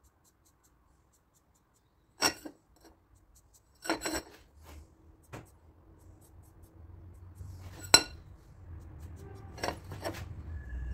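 Metal parts clinking and knocking together in a handful of separate sharp clinks, the loudest about eight seconds in. A low hum starts about halfway.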